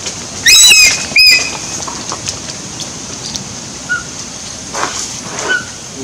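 A caged eagle calling: two short, shrill, high-pitched screams in quick succession, starting about half a second in. A few faint short chirps follow later.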